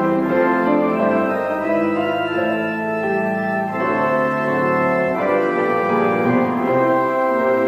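Church organ playing held chords that change every second or so.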